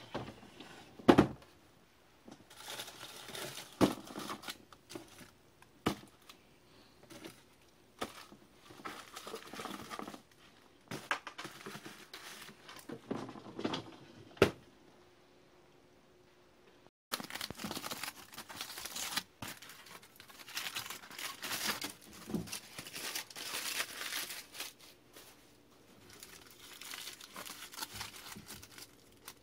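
Aluminium foil crinkling and crackling as it is crumpled and peeled off a wrapped loaf of bread by hand, in irregular bursts that become nearly continuous in the second half. A sharp knock about a second in is the loudest sound, with a few smaller clicks from handling.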